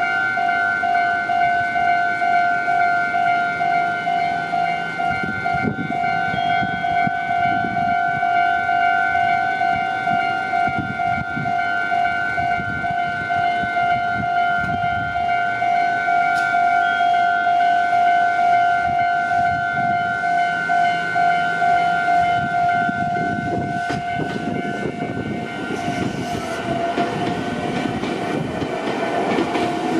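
Japanese level-crossing warning bell ringing in rapid electronic dings, with train noise rumbling under it. The bell stops about 25 seconds in, and a train's rumble grows louder near the end.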